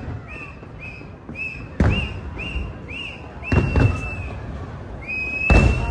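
Aerial fireworks shell bursts: three loud booms, about two seconds apart. A high chirping tone repeats about three times a second behind them and holds longer near the end.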